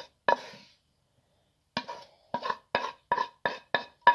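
A spoon knocking against a frying pan to get the last of the fried mushroom filling out. There are two knocks at the start, then after a pause a run of quick, ringing taps, about three a second.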